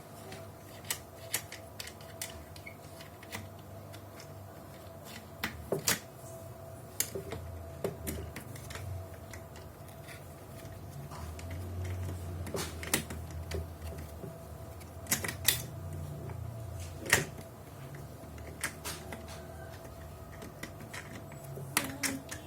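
Irregular clicks and knocks of a baby stroller's parts being handled and fitted together during unboxing, some sharper than others, over a faint steady hum.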